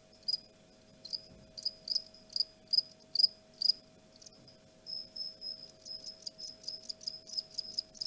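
Male Mediterranean field cricket (Gryllus bimaculatus) stridulating its calling song, rubbing its wings together to make short, high chirps about two to three a second. About five seconds in, the chirps run together into a quicker, more continuous trill. It is the call a male makes to attract females.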